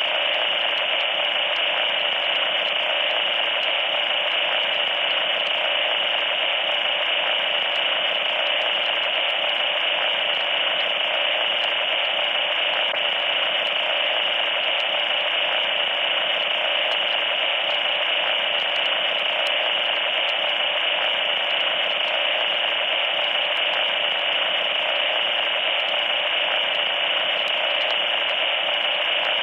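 Loud, steady radio-style static: an even hiss with a shrill high edge that does not change.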